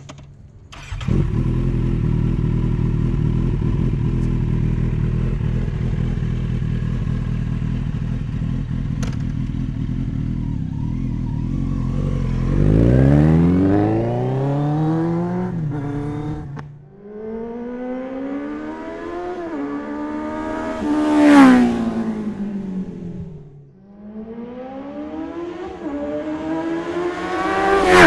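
Kawasaki Z800's inline-four engine through an unbaffled Jeskap carbon 4-2-1 full exhaust: a steady low running note for the first dozen seconds, then several hard pulls with the revs climbing and dropping back, the loudest and highest near the end.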